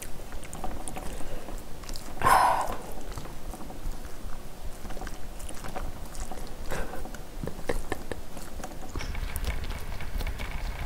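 A spoon clinking and scraping in a ceramic bowl as rice is mixed with chopped chili peppers and sauce, along with close-miked chewing and mouth sounds. There is one louder hissy sound about two seconds in.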